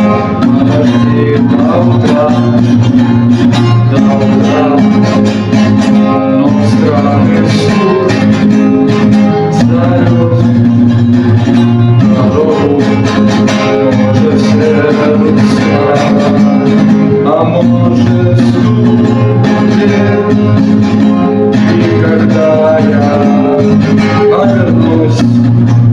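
Music: an instrumental passage of a song led by guitar over a steady bass line.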